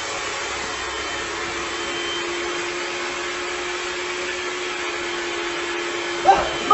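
Handheld electric hair dryer running steadily with a faint hum, blowing air into a latex balloon and inflating it.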